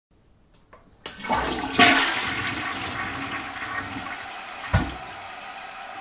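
Toilet flushing: a few faint clicks, then a rush of water about a second in that is loudest near two seconds and slowly tapers off, with a short loud gulp near five seconds as the bowl empties. After that the cistern refills with a steady hiss.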